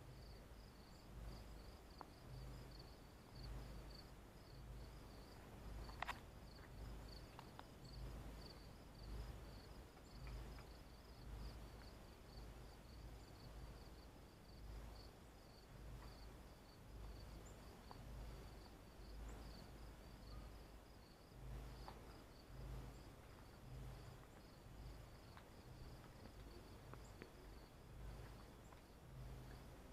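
Faint steady chirping of insects, a fast pulsing high trill that runs on without a break, over a low uneven rumble, with one small click about six seconds in.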